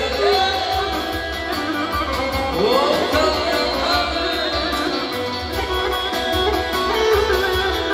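Music with a plucked string instrument carrying a sliding melody over a steady low beat.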